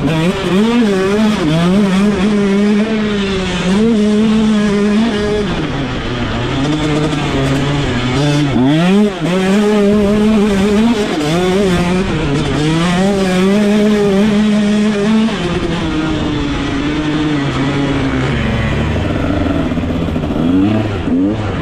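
2022 KTM 125 single-cylinder two-stroke motocross engine being ridden hard: the revs climb and hold high for a few seconds at a time, then drop sharply off the throttle and climb again, again and again through the corners. It runs lower for a few seconds before picking up again near the end.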